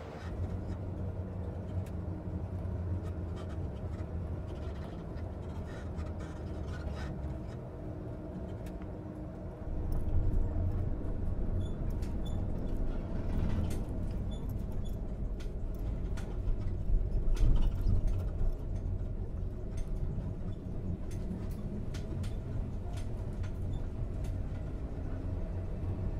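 Engine of a vintage coach running at a steady low drone while it drives. About ten seconds in it becomes louder and fuller, as heard inside the passenger cabin, with light rattles and clicks from the moving coach.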